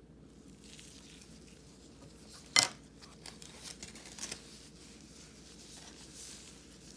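Handling noises: soft rustling and crinkling, with one sharp click about two and a half seconds in and a few softer ticks after it.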